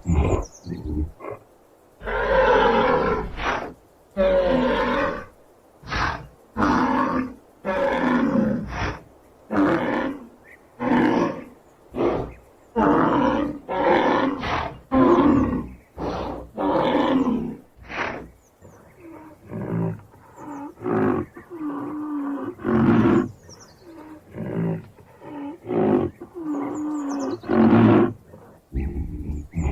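Rhinoceros calling over and over, a string of short roaring calls about one a second, turning to lower, longer calls in the second half.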